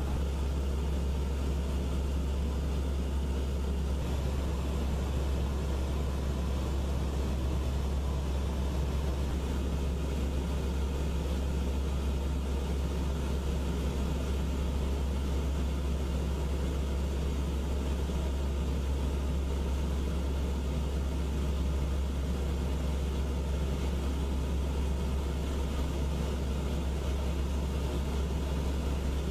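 Steady low engine drone with a constant hum and even noise, heard from inside a vehicle cabin, holding unchanged.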